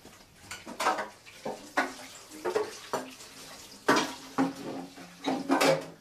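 Dishes and cutlery clattering at a kitchen sink and counter: a string of separate clinks and knocks.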